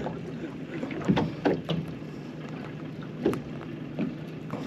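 Small fishing boat afloat on calm water: a steady low hum from the boat, broken by several sharp knocks.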